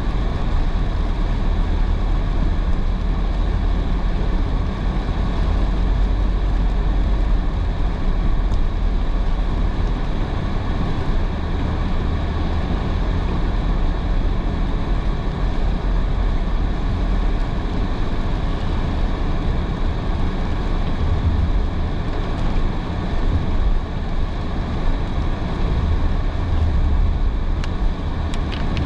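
Car driving in heavy rain, heard from inside: a steady low road rumble with the hiss of tyres on the wet road and rain on the car. A few faint ticks near the end.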